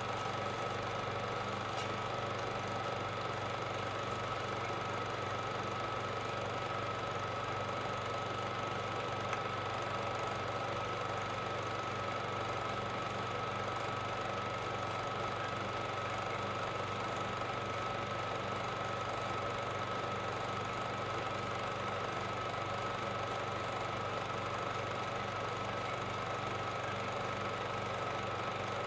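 Steady machine-like hum with a constant high whine over even hiss. It does not change: the running noise of a film-transfer setup laid under silent home-movie footage.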